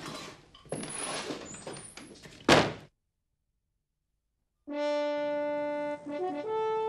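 Scuffling movement noises and one loud, heavy thud about two and a half seconds in, then a gap of silence. Then a brass instrument plays a slow melody of long held notes.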